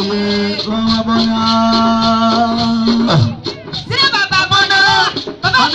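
A group singing a hymn, voices holding long notes, with a short break about three seconds in.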